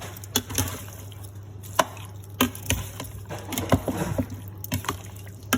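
Kitchen handling sounds while chicken is marinated: irregular knocks and clicks of containers and utensils, with some wet, liquid sounds, over a steady low hum.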